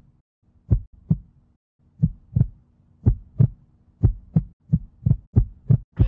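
Deep heartbeat-style thumps in pairs over a faint low steady hum, the beats coming faster toward the end: a produced soundtrack effect building tension.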